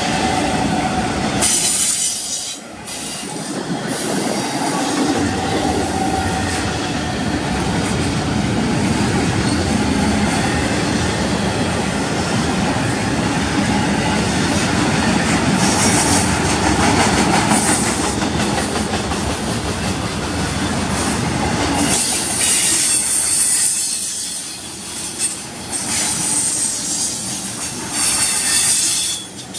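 Intermodal freight cars (double-stack well cars and trailer-carrying spine cars) rolling past at trackside with a steady rumble and clatter of wheels on rail. Brief high-pitched squeals come now and again, a few times through the passage.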